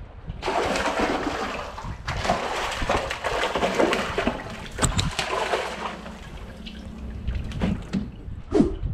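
A hooked sheepshead thrashing and splashing at the surface beside a kayak, with a sharp knock about five seconds in. The splashing dies down after about six seconds, and there is a short thump near the end.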